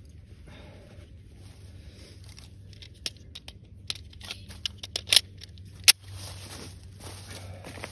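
Pistol magazine change: a run of short metallic clicks and rattles from about three to five seconds in, then one sharp, louder click about six seconds in.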